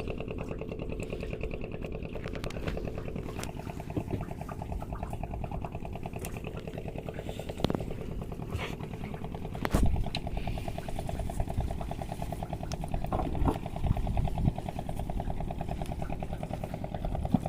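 A small engine running steadily, with a few sharp knocks and some clatter over it.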